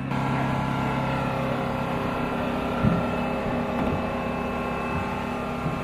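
Steady whine and hum of running aircraft machinery, several fixed tones over a rushing noise, with a few dull knocks about three and four seconds in.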